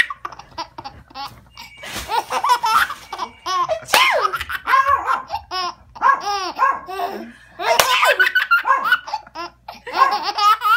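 Baby laughing in repeated fits of belly laughs, with short pauses between bouts.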